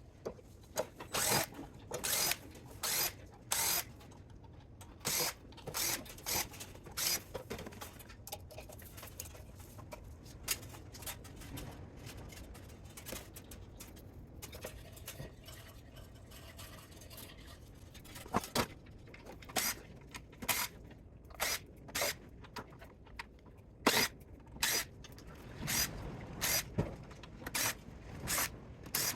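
Hand tools working on the spot welder's metal parts during teardown: a long series of short, sharp scraping and clicking strokes, irregular and sometimes coming in quick runs of two or three.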